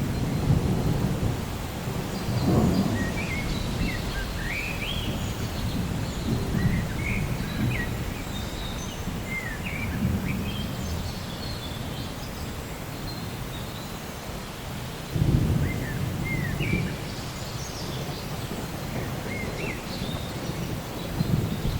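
Thunder rumbling under steady rain. It swells a few seconds in and comes back with a sharper, louder roll about fifteen seconds in. Birds chirp in short, scattered calls above the storm.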